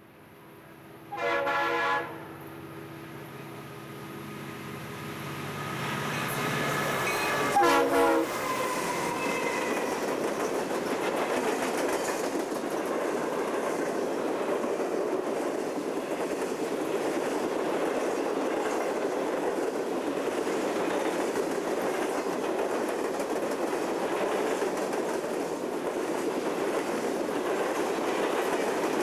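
Diesel locomotive of a Conrail empty coal train sounding two short horn blasts, about a second in and again near eight seconds, its engine growing louder as it nears. Then a long string of empty coal hopper cars rolls past with a steady clickety-clack of wheels on the rails.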